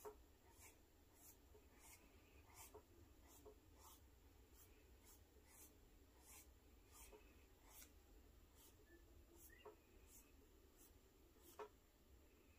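Faint, light scratching of a cotton swab dragged across paper in quick ink strokes, about one stroke every two-thirds of a second, with a slightly louder one at the start and another near the end.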